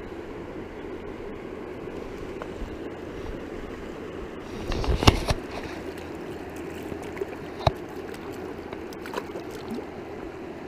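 Steady rush of a shallow river flowing around the wading angler. About five seconds in there is a cluster of sharp knocks and rubs, the loudest moment, with a single sharp knock near eight seconds.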